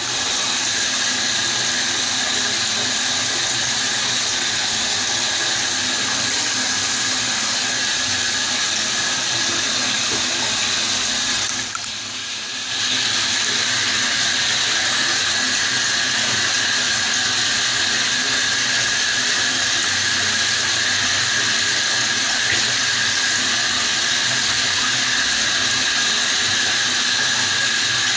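Water running steadily with a loud hiss, dipping briefly about twelve seconds in.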